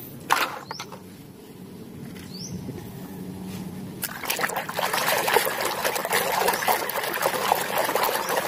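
Water sloshing and splashing in a plastic basin as a hand scrubs a toy car under the surface, starting suddenly about four seconds in. Before that there is a light knock of a plastic toy being set down.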